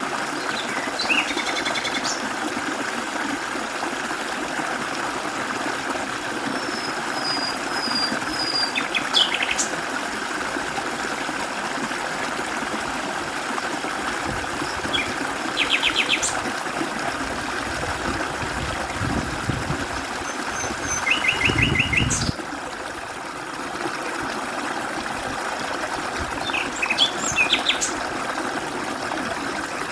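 Mountain stream running steadily, with small birds calling in short rapid trills and thin high notes, about five times. A low rumble builds in the last third and cuts off suddenly, leaving the water a little quieter.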